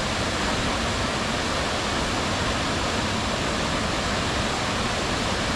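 Raven Cliff Falls pouring: a steady, even rush of falling water.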